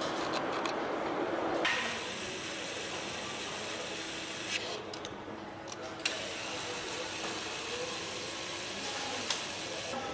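Assembly tools fastening the bolts of an engine flywheel: mechanical ratcheting over a steady hiss of factory noise, with a few sharp clicks.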